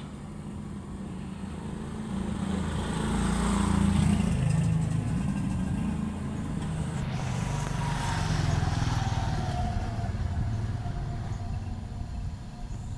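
Low motor rumble that swells and fades twice, with a faint falling whine at the second swell.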